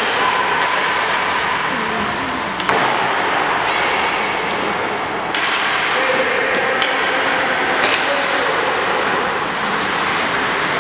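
Ice rink ambience during hockey practice: a steady wash of skates on the ice, several sharp clacks of sticks hitting pucks, and indistinct voices echoing in the arena.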